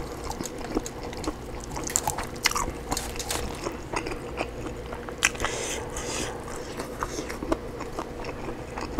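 Close-up eating of oven-crisped rotisserie chicken: a drumstick pulled off by hand, then bitten and chewed, with many irregular crunches and wet mouth clicks. A faint steady hum sits underneath.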